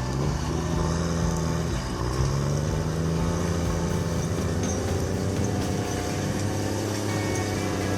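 John Deere 640H cable skidder's diesel engine running steadily, its pitch rising and falling slightly around two to three seconds in.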